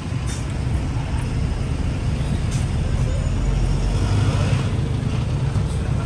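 City street traffic: motor scooters riding past and a city bus driving through, a steady low engine rumble that is loudest about four seconds in.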